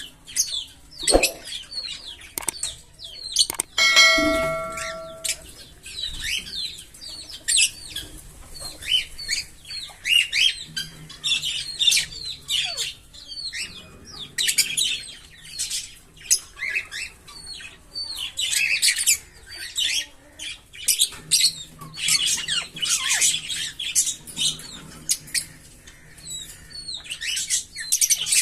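A pair of green Fischer's lovebirds chirping in fast, dense, high-pitched runs. About four seconds in, a loud steady ringing tone lasts over a second above the chirps.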